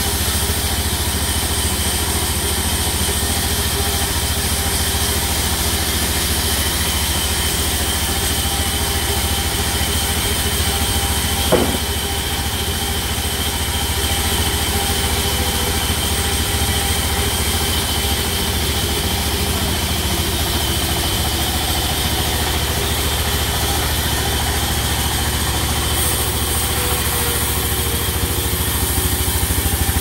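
Large band sawmill running without cutting: a steady machine drone with a fast, even pulse and a thin high whine. One short knock about eleven seconds in.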